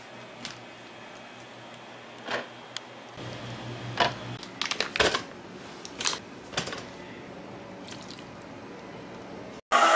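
Scattered light taps, clicks and knocks of kitchen prep: a knife cutting a block of butter on a plastic cutting board and butter pieces dropped into a plastic cup on a digital scale. Right at the end an electric hand mixer starts up loudly.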